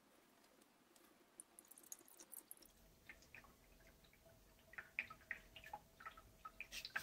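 Faint scattered drips and small clicks as sodium hydroxide solution is pushed from a large syringe through plastic tubing into the electrolyzer, growing busier in the second half.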